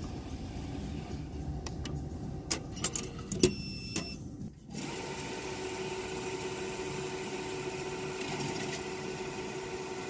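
Cash deposit machine taking in banknotes: a few clicks and a short beep as the notes go into the slot, then from about five seconds in its motor runs steadily, with a held hum, as it draws the notes in, stopping near the end.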